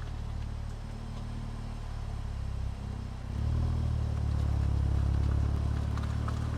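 Volkswagen Golf Mk8 GTI's turbocharged 2.0-litre four-cylinder engine and exhaust running at fairly steady revs in Sport mode, getting noticeably louder about halfway through as it is put under more throttle.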